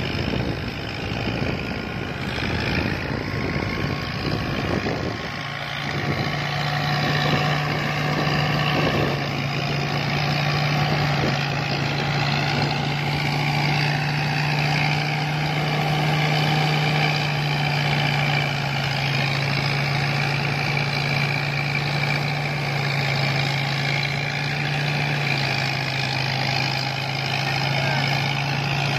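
A New Holland 640 tractor's diesel engine runs under steady load, driving a thresher through its power take-off, with the thresher's drum and blower going continuously. It is uneven for the first few seconds, then settles into a steady low hum about five seconds in.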